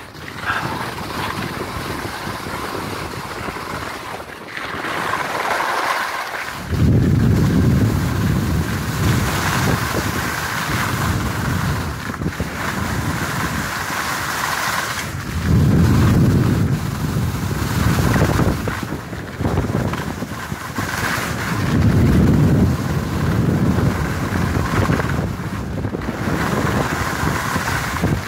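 Wind buffeting the microphone during a downhill ski run, swelling into heavy low rumbles three times, over a steady hiss of skis sliding on soft spring snow.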